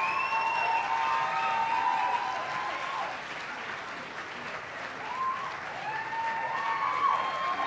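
Audience applauding, with whoops and cheering shouts rising above the clapping; the applause eases a little in the middle and the whoops pick up again near the end.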